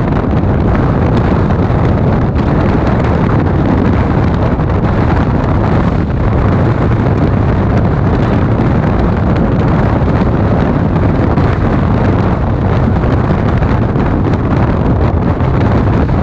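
Wind buffeting a microphone held out of a moving train, over the steady low rumble of the passenger coaches running along the track.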